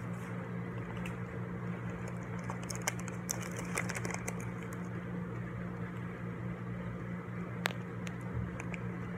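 Steady low hum of room tone, with a few faint clicks and rustles scattered through it; the sharpest click comes near the end.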